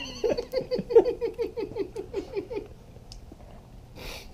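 A person laughing in a quick, even run of high-pitched 'ha' pulses, each dropping slightly in pitch, that stops about two and a half seconds in.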